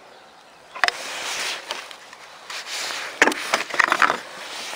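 Handling noises: a sharp click about a second in, then rustling and a cluster of clicks, knocks and scrapes, as gear is handled and set down on wooden decking.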